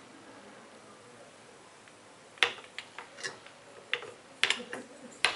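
Hand-worked plastic syringes and a wooden pneumatic crane arm: a couple of quiet seconds, then a string of irregular clicks and light knocks as the arm is moved.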